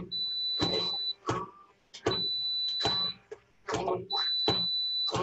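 A handheld immersion blender purées cooked apples into applesauce in a pressure cooker pot. It is run in three short pulses, each about a second on and a second off, with a steady high whine during each one.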